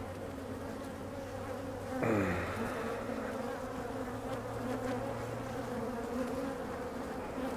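Many honey bees buzzing around an opened hive in a steady, dense hum. About two seconds in, a louder buzz sweeps down in pitch. The colony is defensive and giving off alarm pheromone.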